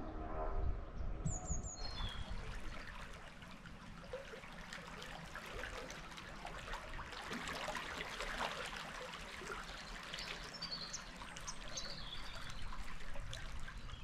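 Rushing river water, a steady wash that sets in about two seconds in, with small birds chirping over it.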